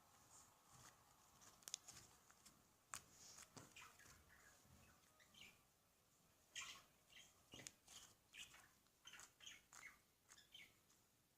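Faint sticky clicks and small squelching pops of butter slime being pressed and squished by hand, coming in irregular runs.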